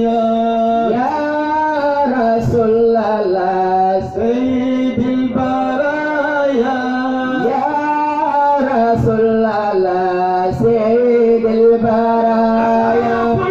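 A man singing a devotional praise song to the Prophet Muhammad into a microphone, in long held notes linked by sliding, ornamented turns.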